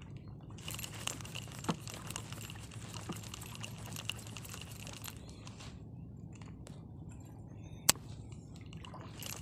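Faint handling of a light spinning rod and reel over a low, steady background, with scattered light ticks and one sharp click near the end as the reel is handled.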